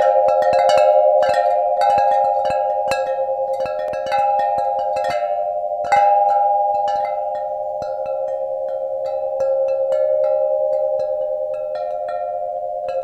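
Chimes ringing: many irregular strikes over a bed of overlapping, sustained metallic tones. The strikes come thickly at first and thin out after about six seconds.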